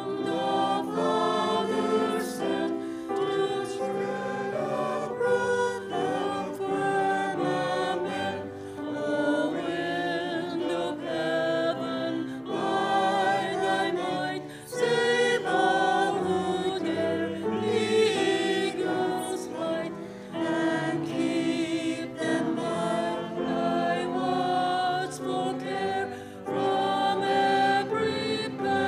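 Music: a choir singing a worship song, with sustained notes that change every second or so.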